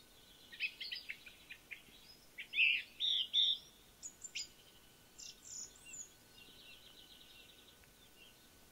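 Wild songbirds chirping and calling: a scatter of short, high chirps over the first six seconds, then a faint rapid trill.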